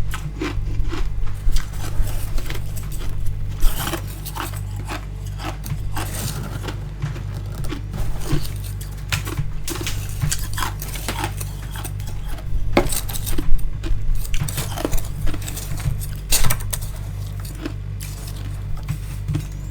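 Close-up crunching of frost being bitten and chewed: a run of irregular, crisp crunches, with a steady low hum underneath.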